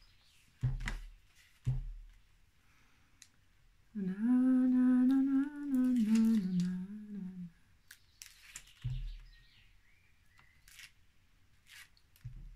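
A woman humming a few notes of a tune for about three and a half seconds, starting about four seconds in, the pitch sagging a little at the end. A few soft knocks of hands on the table come before and after it.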